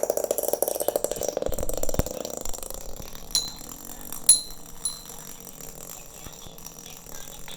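A toy spinning top, just launched by its pull-cord, spinning on a hard surface with a rapid rattling whir that fades over about two seconds. A few sharp clinks follow.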